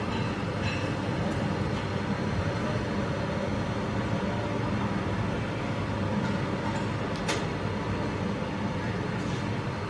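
Steady city street ambience in a narrow lane: a constant low rumble with faint distant voices, and one sharp click about seven seconds in.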